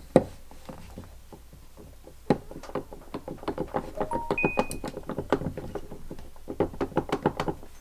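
Dense, irregular metallic clicking and knocking as the armature of a Dumore drill-press motor is worked loose in its housing, starting about two seconds in after a single sharp knock at the start. A few brief ringing tones sound from the metal parts near the middle.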